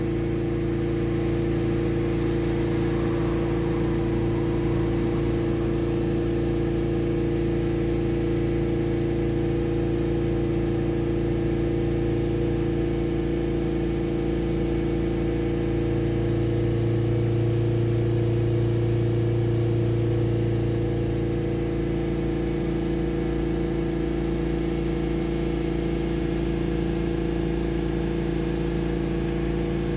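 Ford Transit Custom's 2.2 diesel engine, heard from inside the cab, running steadily at held-up revs of around 3000 rpm to flush DPF cleaning fluid through the particulate filter. The low hum swells slightly for a few seconds past the middle.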